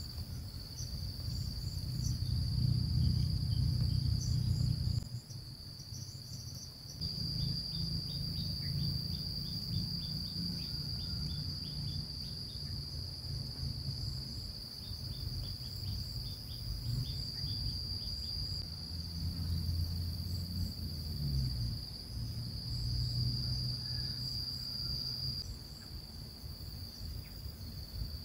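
Insects trilling, a steady high-pitched drone, over a low rumbling noise that is loudest a few seconds in and drops off suddenly about five seconds in. Faint short chirps are scattered through it.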